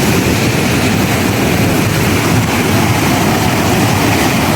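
Steady rushing of a hot-spring waterfall, an even roar of falling water without a break.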